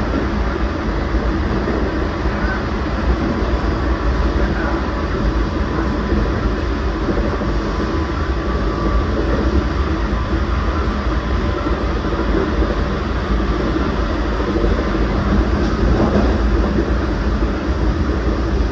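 Steady running noise of a JR Central 383 series electric express train under way: an even, continuous rumble of wheels on rail.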